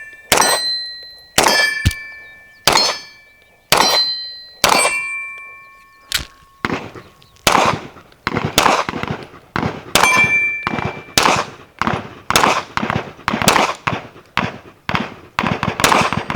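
A string of gunshots, each with the ring of struck steel targets. The first five come about a second apart; after a short gap the shots quicken to roughly two a second.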